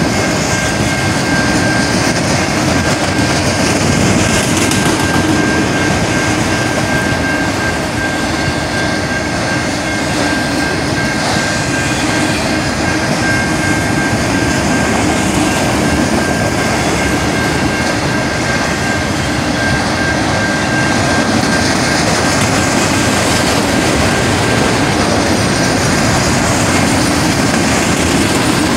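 Freight train of autorack cars rolling steadily past a road crossing: the continuous rumble and clatter of wheels on rail, with a thin steady high tone over it.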